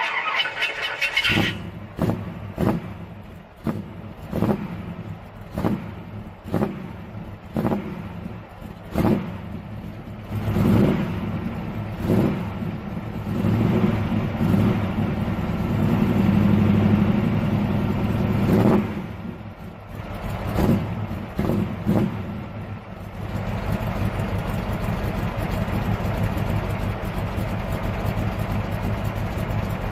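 Cold start of a 1966 Chevelle's 327 small-block V8 through Magnaflow dual exhaust. The starter cranks briefly and the engine catches about a second in. It runs rough and uneven with repeated surges for about twenty seconds, then settles into a steady idle. The engine has sat for a while and still needs a carburettor rebuild and tune-up.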